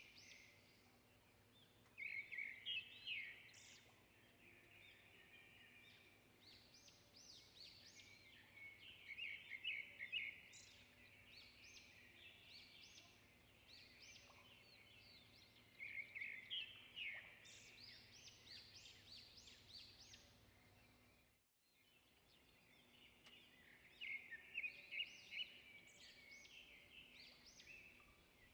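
Faint birdsong: several small birds chirping and twittering in quick repeated phrases, with a brief cut in the sound about two-thirds of the way through.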